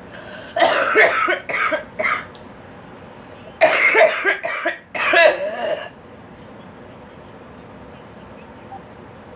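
A girl coughing in two bouts of about three coughs each, the second bout starting about three and a half seconds in.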